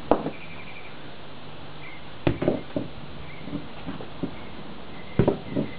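A few sharp knocks and scuffs on concrete from a person in sandals stepping about and handling a rock among scattered battery pieces. There is one knock at the start, a quick cluster about two seconds in, and another near the end.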